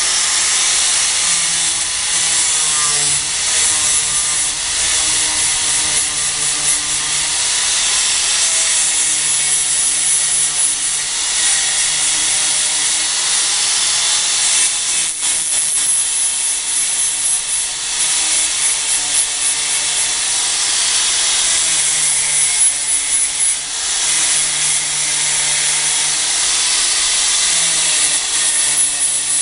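Electric angle grinder running continuously, grinding down the sharp points of screws protruding through a wooden pegboard frame. Its motor pitch wavers up and down as the disc is worked along.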